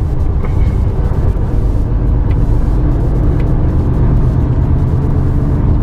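Truck engine and road noise heard inside the cab while driving, a steady low drone, with a few faint ticks.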